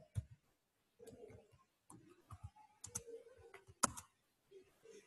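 Computer keyboard being typed on: a scatter of separate key clicks, uneven in spacing, with one sharper click just before four seconds in.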